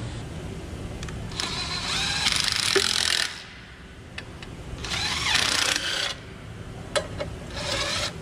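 Makita cordless driver spinning bolts out of an aluminium cylinder head in three whirring bursts, the first about two seconds long and the last brief. A low steady hum comes before the first burst.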